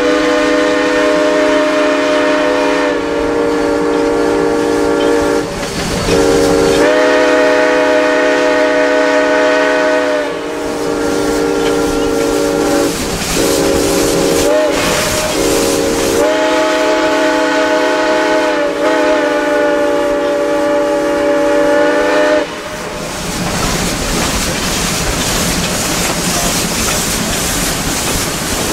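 Steam locomotive's chime whistle blowing several long blasts, with a few short toots in the middle, over the running noise of the moving train. The whistle stops a few seconds before the end, leaving only the train rumble.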